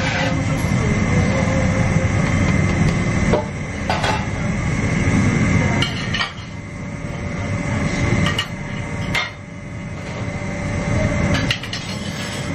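Restaurant kitchen noise: a steady low rumble and a thin steady whine, broken by half a dozen sharp knocks and clatters.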